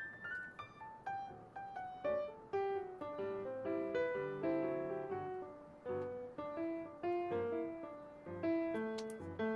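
Background piano music: a gentle melody of single notes, several a second, each struck and left to fade.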